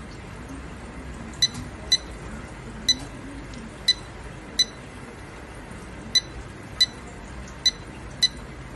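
Short, high electronic beeps from a handheld thermal inkjet printer's touchscreen, one for each stylus tap. There are about nine of them, at irregular intervals.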